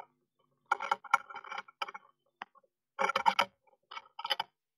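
Adult blue tit shifting and probing in the moss-and-hair nest cup: bursts of close rustling and crackling of nest material, in three bouts with a single click between.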